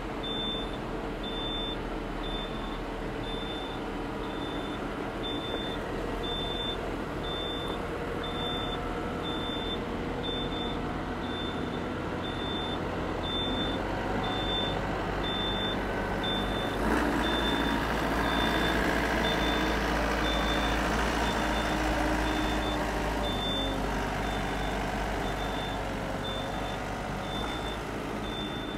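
Yanmar compact tractor's diesel engine running steadily as it drives over a timber bridge, with an electronic warning beeper sounding about once a second. The engine gets louder a little past halfway.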